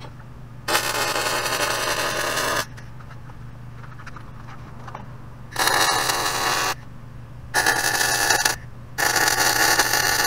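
MIG welding arc crackling on steel from a 250-amp eBay MIG welder, struck four times: one run of about two seconds, then three shorter runs of about a second each, over a steady low hum.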